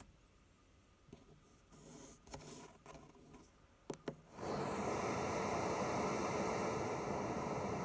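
LectroFan Micro white noise speaker starting up: faint handling sounds and two sharp clicks, then about four seconds in a loud, steady hiss of white noise comes on and holds.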